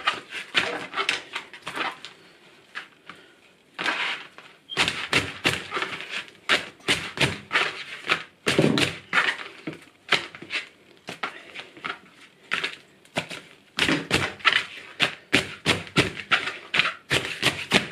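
Hands slapping and clapping a stack of hot, flaky Kerala parottas on a plastic cutting board, a quick irregular run of slaps, a few a second, with a short pause about two seconds in. This is the beating that loosens and fluffs the parotta's layers.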